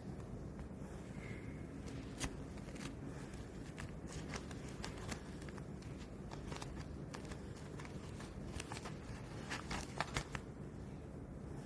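Self-adhesive faux leather patch being handled: scattered crinkles and small clicks, a cluster of them near the end, over a steady low background hum.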